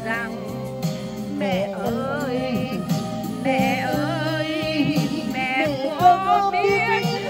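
A singer's voice amplified through a microphone and loudspeaker, with wavering, gliding held notes, over music accompaniment with steady low notes.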